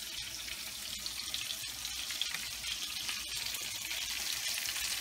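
Fish fillets frying in oil in a frying pan: a steady sizzling hiss with scattered small crackles.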